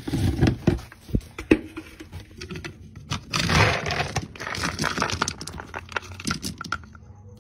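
A plastic scoop digging into dry dog kibble in a plastic storage bin: scattered rattling clicks, with a denser rush of rattling kibble about three and a half seconds in.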